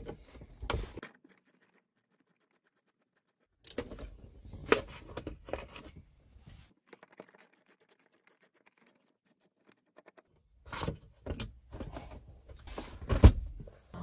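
Hand ratchet with an extension and Torx bit loosening screws in a car's center console, its pawl clicking in short runs with quiet spells between. A single knock near the end.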